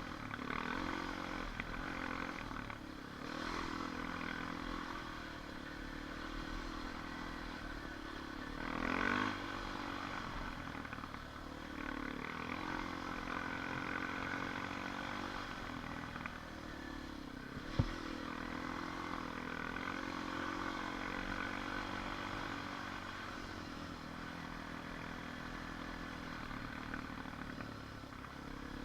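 ATV engine running as it is ridden along a trail, its pitch rising and falling with the throttle. It swells briefly louder about nine seconds in, and there is one sharp knock a little before halfway.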